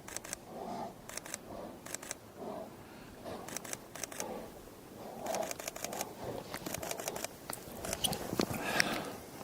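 Camera shutter firing in rapid bursts of clicks, the bursts coming more often after about five seconds. Under it are the heavy breathing and low growls of fighting bears.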